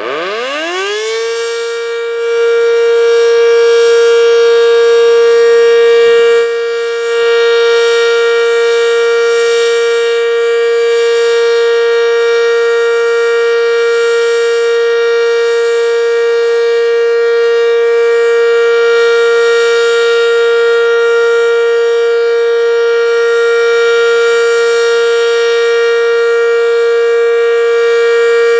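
Werden Electric B-115 single-tone omnidirectional electric siren winding up: its pitch climbs quickly over the first second or so, then holds one steady, very loud tone. The loudness dips briefly about six and a half seconds in.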